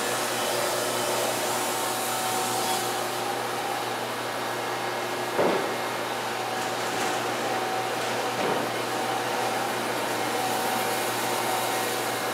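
Steady whir and hum of a Wood-Mizer LT50 bandsaw mill and the shop's dust collection blower running, with two brief knocks, one near the middle and another about three seconds later.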